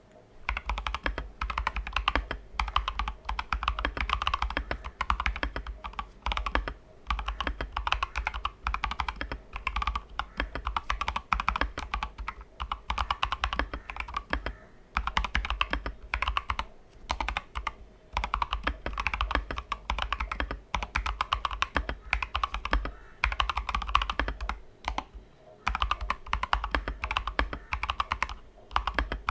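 Fast typing on a Keychron K2 V2 mechanical keyboard fitted with Gazzew Boba U4T 62 g tactile switches, lubed Durock plate-mounted stabilisers and thick PBT keycaps: a dense run of keystrokes starting about half a second in, broken by a few brief pauses.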